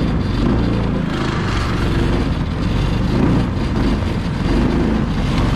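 Yerf-Dog 3203 go-kart's small engine running as the kart drives across snow, its pitch rising and falling with the throttle.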